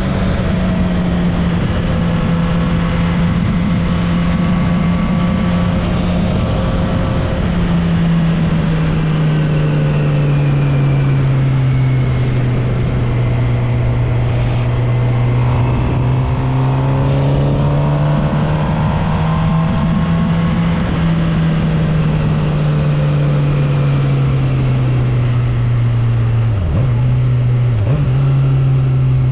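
Suzuki GSX-R750 inline-four engine pulling along at steady mid revs, heard onboard with wind rush. The note drops and wavers gently with the throttle, and breaks twice quickly near the end.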